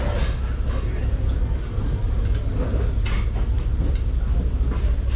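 Steady low rumble with faint voices talking in the background.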